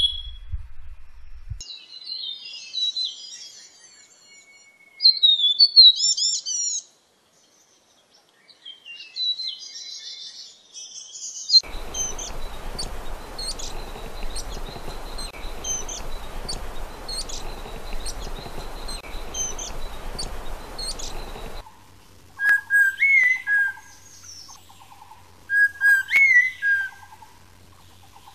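Three birds' calls in succession. First, Morrison's fulvettas giving busy high chattering calls. Next, a Taiwan fulvetta's thin, high, upward-flicking notes, repeated over a steady hiss. Then, from about three-quarters of the way in, a rusty laughingthrush's whistled phrases, repeated about every three seconds.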